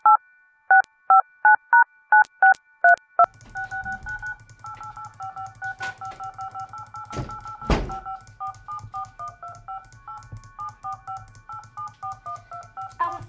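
Touch-tone (DTMF) dialing tones from an on-screen keypad: short beeps, each a pair of tones sounding together. First come about nine loud, clean, evenly spaced beeps. Then, after about three seconds, a faster run of quieter tone pairs plays over a low room hum, broken by one dull knock about halfway through.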